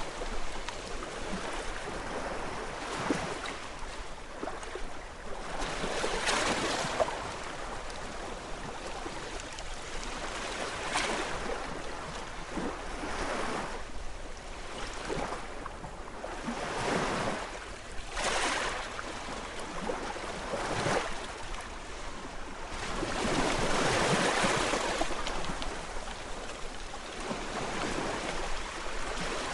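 Gentle sea waves washing in, a steady wash that swells and fades every few seconds. The biggest swell comes about three-quarters of the way through.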